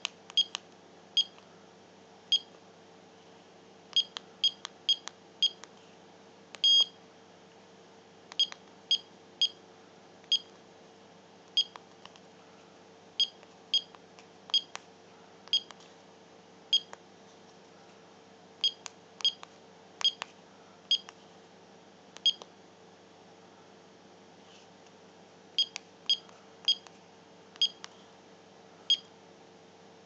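Short, high electronic beeps from the combination lock's keypad buzzer, one per key press, coming in irregular runs as codes are entered. A longer beep sounds about seven seconds in.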